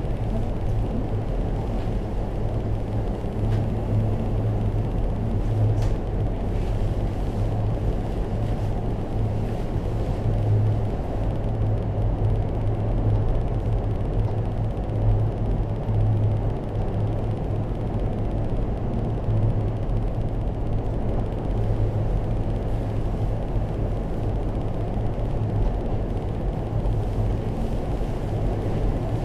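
Steady low hum and rumble inside a moving aerial cable car cabin as it travels along its track ropes, with a deep drone throughout.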